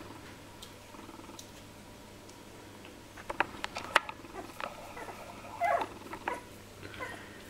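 Three-week-old Jack Russell Terrier puppies giving small squeaks and grunts as they play, with light clicks among them, starting a few seconds in; the loudest squeal comes a little past halfway.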